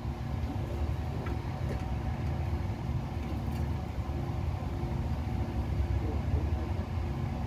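Forklift engine idling steadily, a continuous low rumble with a steady hum.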